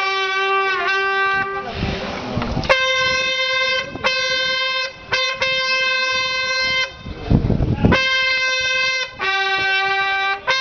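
A brass horn sounding long held notes, mostly on one pitch and twice on a lower one, with short breaks between them, in the manner of a slow processional call. Twice, about two seconds in and again near seven and a half seconds, the notes pause for a dull rumbling noise.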